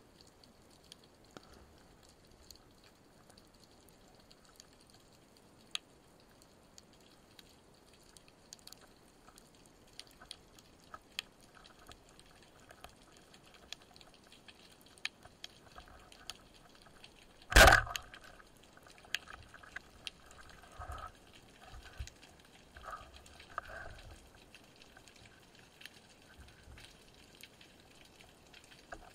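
Underwater ambience full of scattered sharp crackling clicks. About two-thirds of the way through, a single loud, sharp report typical of a speargun firing, followed over the next few seconds by several short knocks and rattles.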